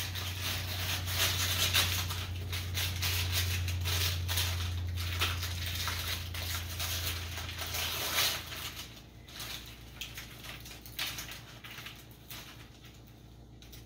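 Parchment paper crinkling and rustling as it is peeled back off a sheet of hard, dried stock on a baking tray. The crinkling is dense for about eight seconds, then thins to scattered crackles. A low hum stops about nine seconds in.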